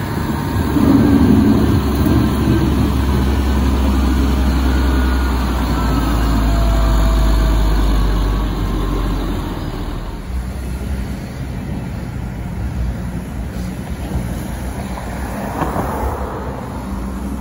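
Cat 160M motor grader's diesel engine running close by as it plows snow, with a heavy low rumble that fades after about nine seconds. The engine noise then gives way to quieter, more distant machinery and passing traffic.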